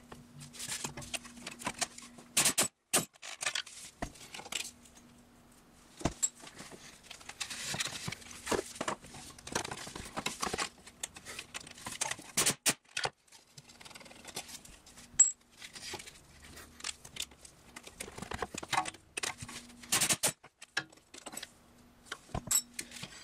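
Scattered metallic clicks and clinks of hand tools and bolts: a triple-square bit on an extension being worked on the CV axle's inner flange bolts, and the loosened bolts being handled.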